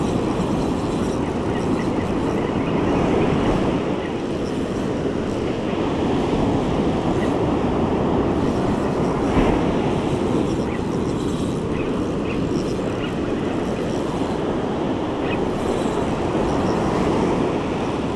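Steady wind on the microphone mixed with the rumble of breaking surf on the beach.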